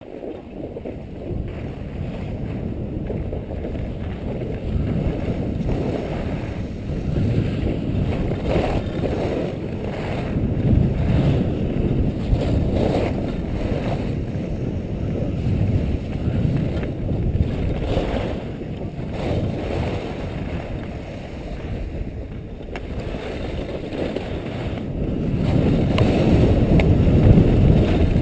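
Wind rushing over the microphone of a skier's body-worn camera during a fast run, with skis hissing and scraping over packed snow through the turns. It grows louder near the end.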